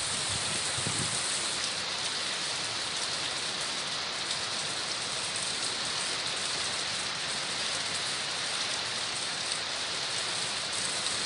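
Heavy typhoon rain pouring steadily onto a street and rooftops, an even hiss that does not let up.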